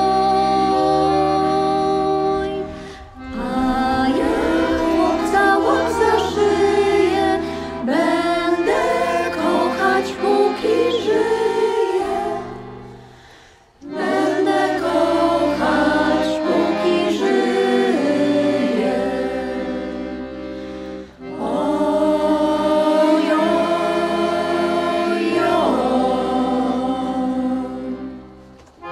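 Polish folk ensemble's choir of women's voices singing a folk song in long phrases, with short breaks between verses. Accordion and double bass accompany the singing.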